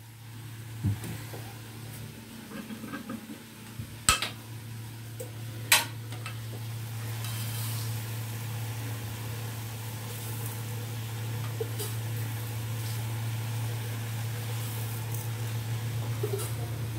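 Kitchen clatter: a metal utensil clinks sharply against an aluminium cooking pot twice, about four and six seconds in, over a steady low hum.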